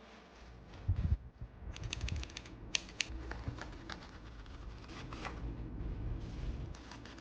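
Small sharp plastic clicks and taps from mechanical keyboard parts being handled during a switch and stabilizer lubing mod, with a low thump about a second in and a quick run of clicks soon after.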